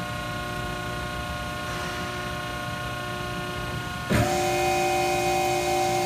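Hydraulic CNC press brake running: a steady hydraulic hum, then about four seconds in a click and a louder, steady whine as the machine goes into its next cycle.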